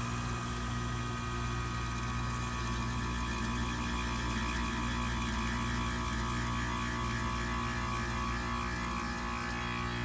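Carrier 38YCC heat pump outdoor unit running with a steady low hum.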